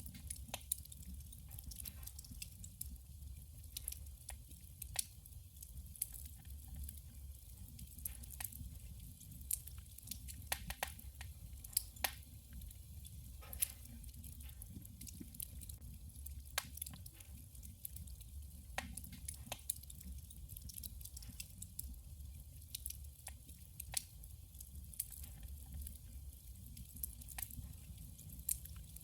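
Wood fire burning in a wood stove, crackling and popping with many small, irregular sharp snaps over a low steady rumble.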